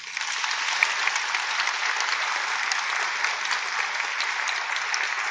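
Theatre audience applauding at the curtain call of a ballet performance. Dense, steady clapping breaks out all at once.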